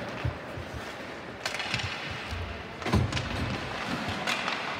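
Ice hockey play in an arena: skates and sticks on the ice over a steady background hubbub, with sharp clacks about one and a half and four seconds in and a heavier thump about three seconds in.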